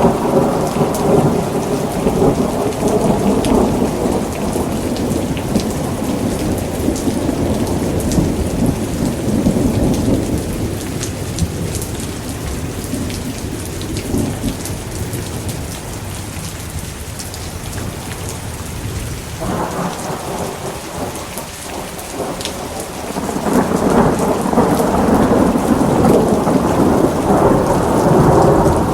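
Steady rain falling with rolling thunder. The thunder rumble is heavy at first, eases off through the middle, then builds again from about two-thirds of the way through.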